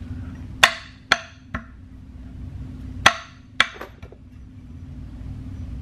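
A metal wheel spacer knocking sharply against an alloy wheel's centre bore as it is pushed and worked into place to test its fit. The knocks come in two quick groups: three, then two or three more. The spacer's cone-shaped hub-centric lip keeps it from sitting flush.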